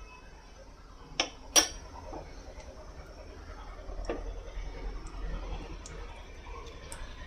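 Utensil clinks against a nonstick frying pan, two sharp ones about a second and a half in, then soft scattered taps and scrapes as a silicone spatula pushes a lump of ghee around in oil that is not yet sizzling.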